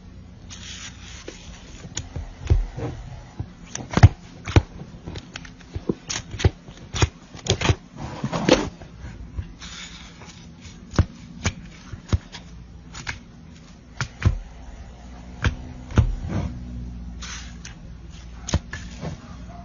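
Slime being pressed and poked by hand. It gives an irregular run of sharp clicks and pops, with a few softer squishing stretches between.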